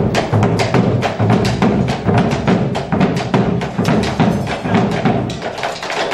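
Malambo music: dancers' rapid zapateo foot-stamping, a quick run of sharp heel and boot strikes several times a second, over a steady drum beat.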